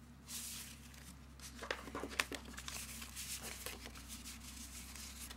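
Laminated paper cash envelopes being shuffled and rearranged by hand: light rustling with scattered sharp clicks and taps, the sharpest about two seconds in.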